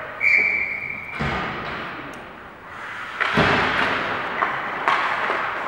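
Ice hockey rink sounds: a short, steady, high whistle-like tone near the start, then two heavy thuds about a second and three seconds in, with smaller knocks over general rink noise.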